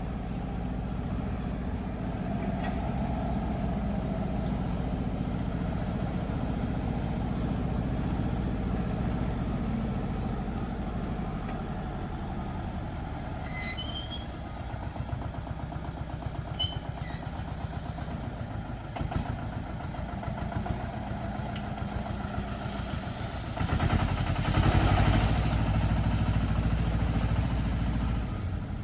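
Heavy earthmoving machine's diesel engine running steadily, with two sharp clinks about halfway through. The engine grows louder for a few seconds near the end, as if working harder.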